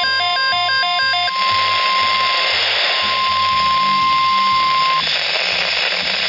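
NOAA Weather Radio's 1050 Hz alert tone sounds steadily over radio static and cuts off suddenly about five seconds in, leaving the hiss. For the first second or so, an alternating two-pitch electronic tone plays over the alert tone. A low rhythmic pulsing runs underneath.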